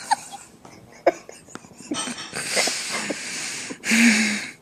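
A person making breathy mouth and throat noises with a few small clicks, then a louder breathy, voiced noise about four seconds in.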